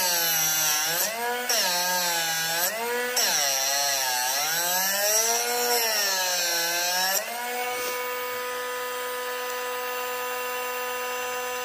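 Drill Doctor drill-bit sharpener's motor whining as a drill bit in its chuck is ground in the side port that thins the tip. The pitch sags and recovers again and again as the bit is worked against the grinding wheel, with a grinding hiss over it. About seven seconds in the grinding stops and the motor runs on at a steady pitch, unloaded.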